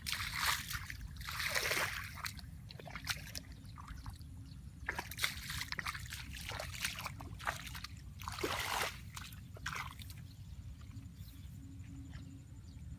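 Shallow water splashing and sloshing in short, irregular bursts, from fishing by hand in a water-filled hole.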